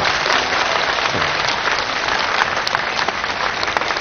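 A large studio audience applauding, many hands clapping in a dense, steady patter.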